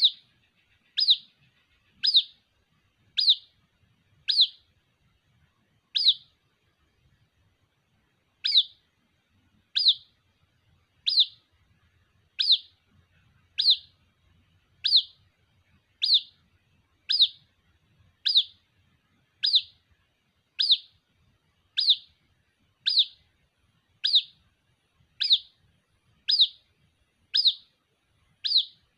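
White-breasted waterhen chick giving sharp, high, down-slurred peeps about once a second, calling for its mother. There is one longer pause about six seconds in, then the peeps go on evenly.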